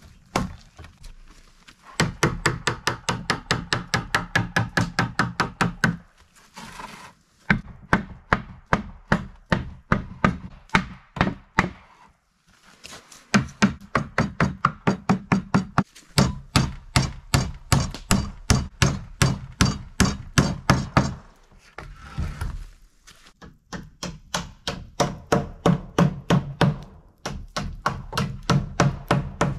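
Hammer driving nails into wooden planks: quick, evenly spaced blows, about five a second, in several runs with short pauses between.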